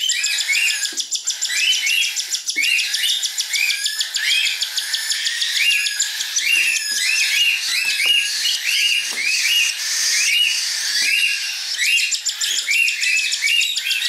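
Cockatiel chicks' food-begging squawks: short rising calls repeated about two a second, with a fast pulsing chatter over them, the typical noise of chicks wanting to be fed at hand-feeding time.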